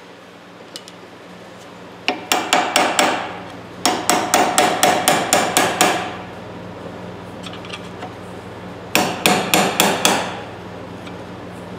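Hammer tapping a punch held against the pivot rivet of old steel pliers clamped in a bench vise. The metallic strikes come in three quick runs, about five a second, with a short ringing note after each.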